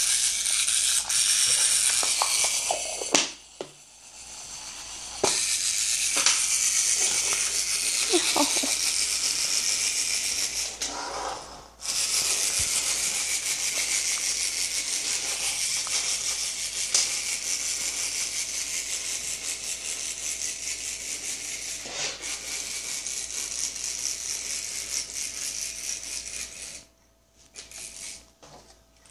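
Clockwork motor of a wind-up Chicken Little baseball toy buzzing with a fast, rattling whirr as its spring runs down. It breaks off briefly twice, then grows gradually quieter and stops near the end.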